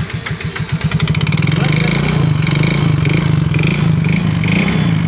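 Yamaha Mio J scooter's single-cylinder four-stroke engine picking up revs in the first second, then running steadily with a rough, harsh note. The engine had run short of oil, and the roughness comes from a scored piston.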